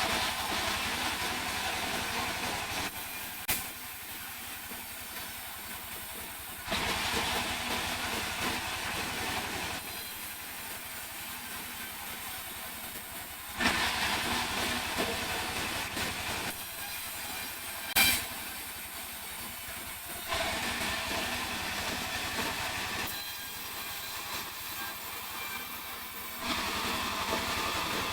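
Sawmill saw cutting mahogany: an engine runs steadily while the blade goes into the wood five times, each cut a louder hissing stretch of two to three seconds with quieter gaps between. Two sharp knocks come about three and a half seconds in and again near eighteen seconds.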